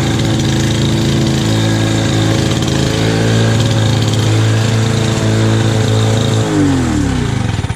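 Lawn-Boy M21BMRD walk-behind mower's two-stroke engine running steadily at mowing speed, then shut off about six and a half seconds in, its pitch falling as it winds down to a stop.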